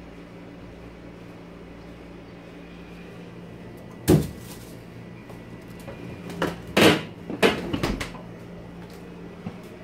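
A small refrigerator's door being opened and shut, over a steady low hum. There is a sharp knock about four seconds in, then a cluster of knocks and bumps as things are handled at the door, ending with the door closing around eight seconds in.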